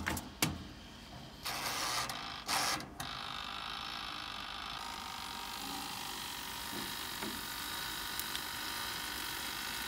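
Koizumi 1200 W toaster oven: its door clicks shut, then two brief scraping bursts as its dials are turned, followed by a steady hum as the oven runs.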